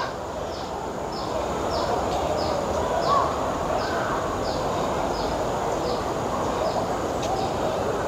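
Outdoor ambience: a steady background hiss and rumble, with a short, high, falling chirp repeating about three times every two seconds and a faint lower call or two near the middle.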